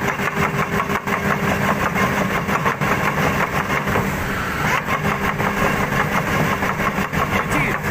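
Crawler excavator's diesel engine running with a steady low hum, overlaid by a fast, rattling clatter of knocks.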